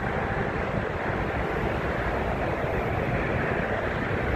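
Steady jet engine noise from airliners across the airfield, mixed with wind rumbling on the microphone.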